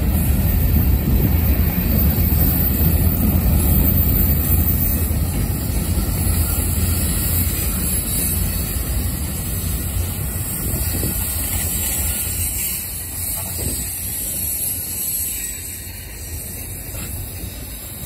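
Freight cars (boxcars, tank cars and autoracks) rolling past on the rails: a steady low rumble of wheels on track that slowly fades.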